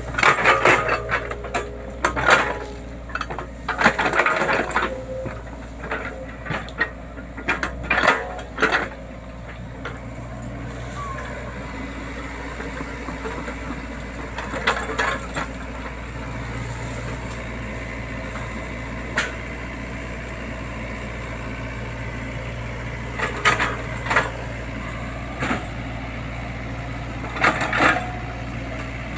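Excavator engine running steadily while the bucket breaks and crushes wood and brush in clearing land, giving a series of sharp cracks and crunches, dense in the first nine seconds and returning in short clusters later on.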